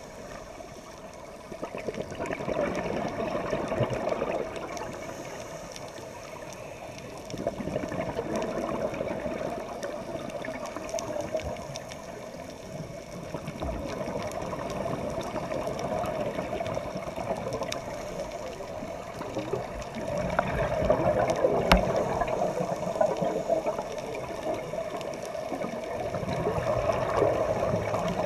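Underwater ambience of scuba breathing: exhaled regulator bubbles gurgling and rumbling in swells every few seconds over a steady water hiss, with a single sharp click about three-quarters of the way through.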